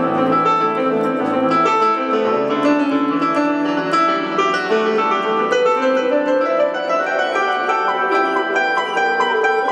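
Stage keyboard played with both hands in a piano voice: a flowing run of melody notes over lower held chords.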